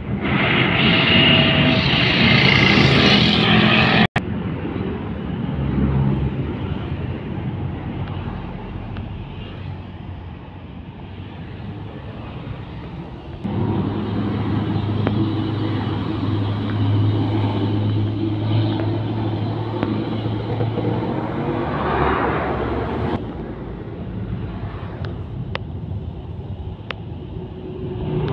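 Heavy diesel dump trucks passing on a road, Mitsubishi Fuso and Hino among them, with a steady low engine drone and tyre noise. The sound changes abruptly three times, each a different truck going by, and is loudest in the first four seconds.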